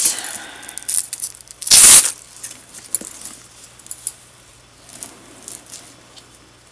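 Packing tissue paper rustling and crinkling as it is pulled out of and handled around a new leather bag. There is one loud crinkle just before two seconds in, then a few light rustles that die away.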